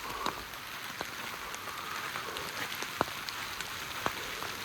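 Steady rain falling, an even hiss dotted with many small sharp ticks.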